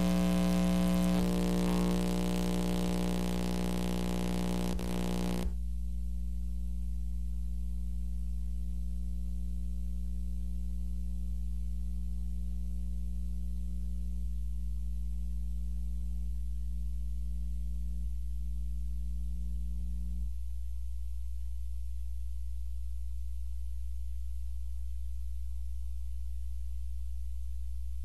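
Steady low electrical hum with a stack of even tones. For about the first five seconds a louder rushing, machine-like noise runs over it and then cuts off suddenly.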